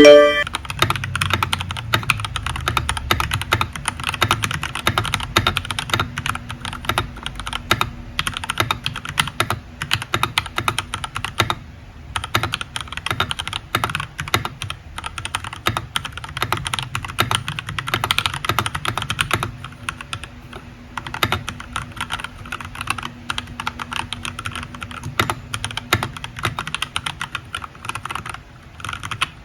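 Continuous fast typing on a Royal Kludge RK61 mechanical keyboard with Durock L7 linear switches and pudding keycaps: a dense run of key clacks with a few short pauses. A brief chime sounds right at the start.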